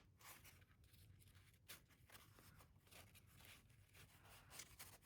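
Near silence, with a few faint, soft rustles of sheets of kaishi paper being handled.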